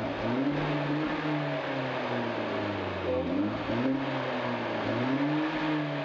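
Hyundai Genesis Coupe 2.0T's turbocharged four-cylinder engine through its stock exhaust, revved from idle three times, the pitch climbing and falling back with each rev, the first one longest.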